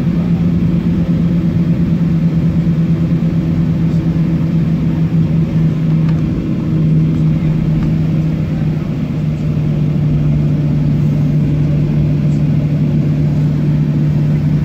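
Jet airliner's engines heard from inside the cabin while it taxis: a steady drone with a constant low hum.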